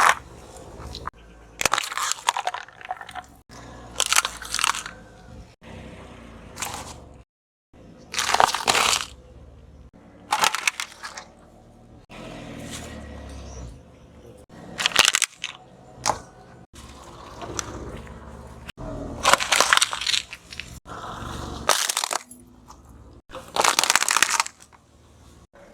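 Brittle objects crunching and cracking as they are crushed under a car tyre: about a dozen separate crunches, each lasting about half a second to a second, some breaking off abruptly.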